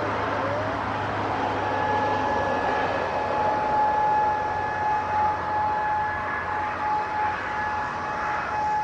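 Federal Signal DSA electronic sirens sounding a steady alert tone that comes in about a second and a half in, over a continuous broad background roar.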